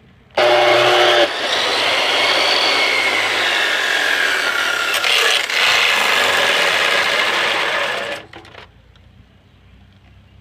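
Chop saw switched on, its motor whining briefly as it spins up, then cutting through a plastic Nerf blaster for about seven seconds before it stops about eight seconds in.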